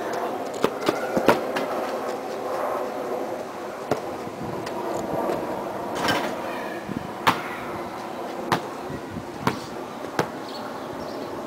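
A basketball bouncing on packed dirt and striking a portable hoop's rim and backboard, heard as a string of sharp knocks every second or two over a steady background noise.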